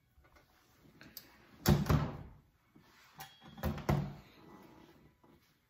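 Two loud knocks with some rustling, about two seconds apart, from someone moving about and handling things close to the microphone.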